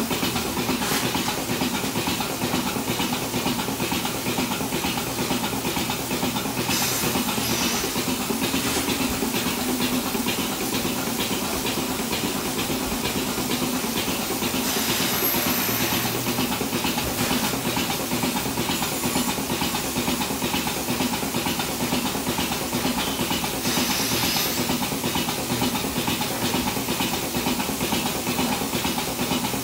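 Goat milking machine running with its units on the teats: a steady hiss and hum of the vacuum system over a rapid, even clicking of the pulsators. Twice, a brief louder rush of hissing air.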